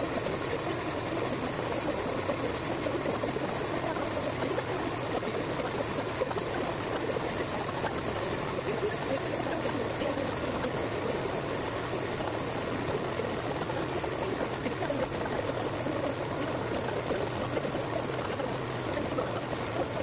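Metal lathe running steadily, spinning a 4DR5 diesel cylinder head on its faceplate as the cutting tool faces the head's deck surface. The machine and cut make an even, unbroken noise with no change in speed.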